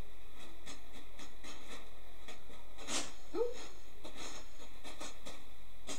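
Plastic bag crinkling and rustling in irregular short crackles as a cat noses into it and it is held open, with a brief squeak a little past halfway.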